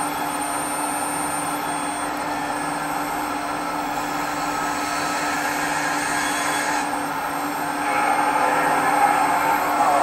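Hydraulic pump and motor of an HMK 490 R/C model excavator running steadily with a whine, growing louder with a wavering pitch about eight seconds in as the scrap grapple is worked.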